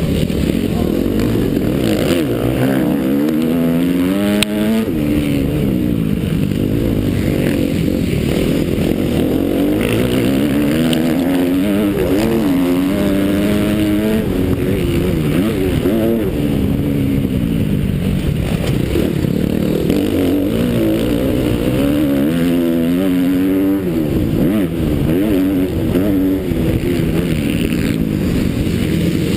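Motocross bike engine at full race pace, its pitch repeatedly climbing and dropping as the rider accelerates, shifts and rolls off for corners. It is heard close up from a camera mounted on the bike, with rushing air around it.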